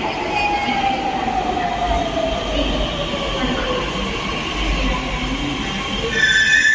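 Pune Metro train running, its electric whine falling steadily in pitch as it slows over a steady rumble. A high, steady squeal comes in about six seconds in.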